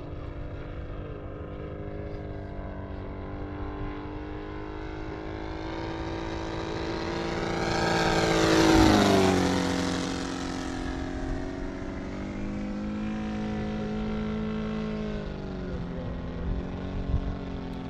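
Saito FG-60R3 gas radial engine of a giant-scale RC P-47 Thunderbolt flying a low pass. The propeller-driven engine drone grows louder as the plane approaches and peaks about nine seconds in, dropping in pitch as it goes by, then fades as the plane climbs away.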